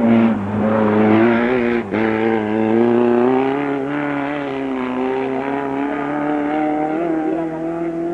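A race car engine running hard at high revs on a hill climb. It holds a nearly steady note, with a brief cut about two seconds in.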